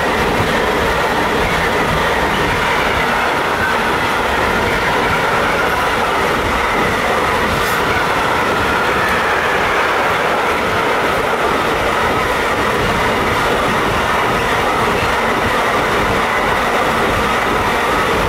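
Intermodal container freight train passing close by, its wagon wheels clattering steadily and loudly along the rails.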